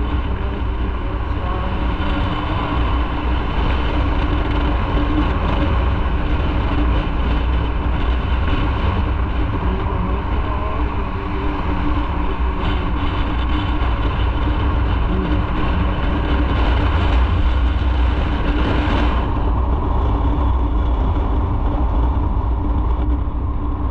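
Motorcycle running steadily at road speed: a continuous engine hum under a heavy, steady rumble of wind on the microphone.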